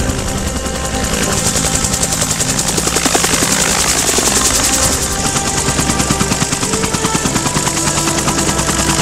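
Bell UH-1 Huey helicopter's two-blade main rotor beating in a fast, even rhythm, growing louder from about a second in and easing slightly after the middle.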